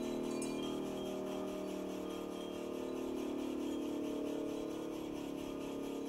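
Darley Champion electromechanical siren sounding a steady, held tone during a short alert test.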